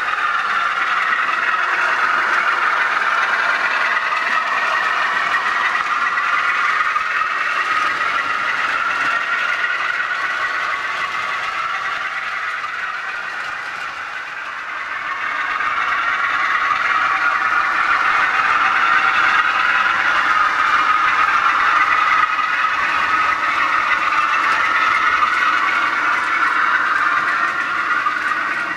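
Model diesel locomotive's DCC sound decoder playing a diesel engine note through its small speaker as the train runs, with wheels rattling on the track. The sound fades about halfway through and then builds again.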